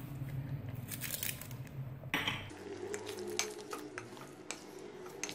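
Light clinks and scrapes of cooking in an aluminium pot: whole dried red chillies tipped in and a wooden spoon stirring the chicken in its cream sauce. A low steady hum underneath cuts out about two and a half seconds in.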